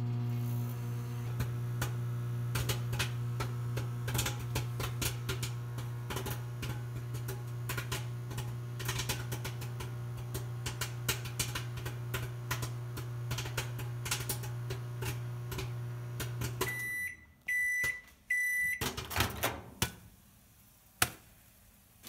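Microwave oven running with a steady hum while popcorn kernels pop irregularly in the bag. About 17 seconds in the hum stops and the microwave beeps three times to signal the end of the cooking cycle, then the door clicks open.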